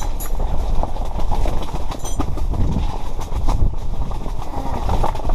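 Strong wind buffeting the microphone in a heavy low rumble, with irregular clattering knocks throughout.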